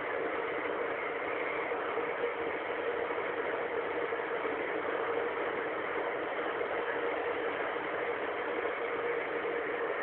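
Steady road and engine noise of a car driving at speed on a highway, an even rushing with a low hum and no change.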